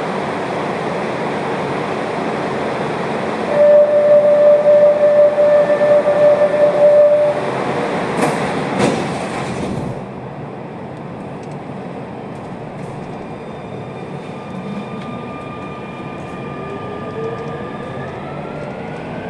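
Barcelona Metro train running on the line with steady rolling noise. A few seconds in, a steady high tone sounds for about four seconds, followed by a couple of sharp clicks. It then runs quieter while the electric traction motors whine, rising in pitch as the train accelerates.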